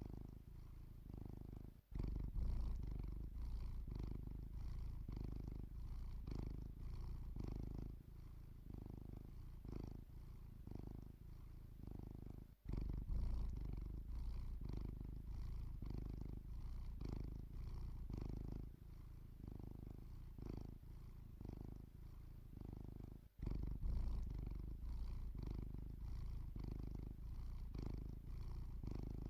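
Domestic cat purring steadily, in an even rhythm of breaths. The purring cuts out very briefly three times, about ten seconds apart.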